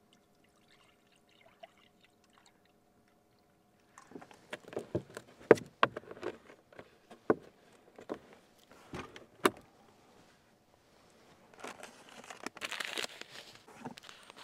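Clicks, knocks and crinkles of a plastic water bottle being handled and capped, then rustling of a paper oatmeal packet near the end. The first four seconds hold only a faint steady hum.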